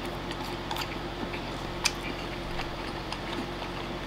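Quiet eating: a few light clicks of chopsticks against a bowl, the sharpest about two seconds in, over a steady low hum.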